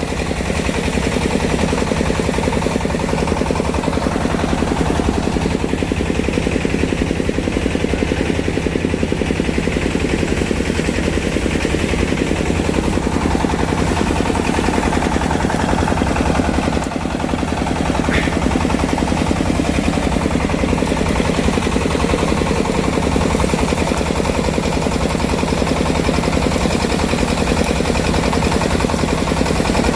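Engine-driven rice threshing machine running steadily, a loud, fast, even rattle with the engine's hum beneath it.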